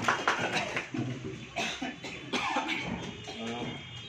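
A man coughing, with low, indistinct voices in the room.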